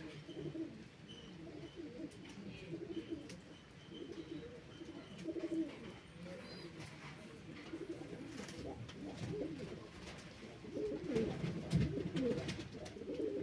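Domestic pigeons cooing, several birds overlapping, growing louder for the last couple of seconds. A few short clicks come through among the calls.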